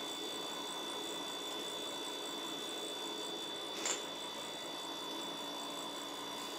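Steady background hum with a thin high whine, and one short click about four seconds in.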